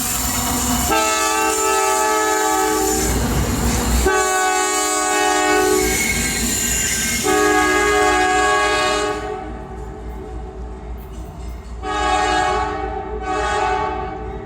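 Train horn blowing several long blasts of a few notes at once over the rush and rumble of the passing train. After the train noise drops away about nine seconds in, two shorter, fainter blasts follow.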